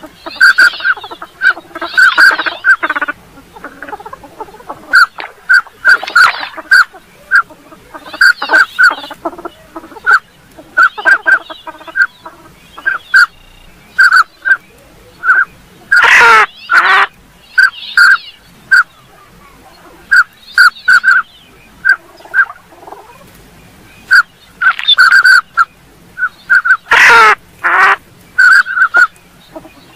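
Northern pintail calls: short whistled notes repeated in quick clusters, with rougher calls mixed among them. Two louder, harsher calls come about halfway through and again near the end.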